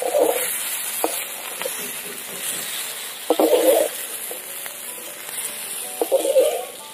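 Eggplant wedges sizzling in hot mustard oil in an iron kadai, while a metal slotted spatula scrapes and clanks against the pan three times as the fried pieces are lifted out.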